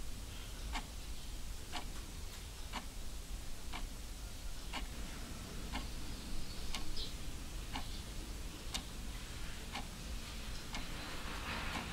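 Regular ticking, one sharp tick about every second, over a low steady hum.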